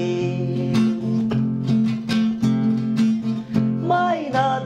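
Acoustic guitar strummed in a steady rhythm between sung lines. A held sung note dies away in the first second, and a man's singing voice comes back in near the end.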